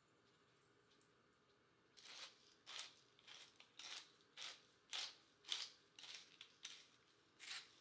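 Wooden pepper mill being twisted, grinding peppercorns in a run of short crunching grinds, about two a second, starting about two seconds in.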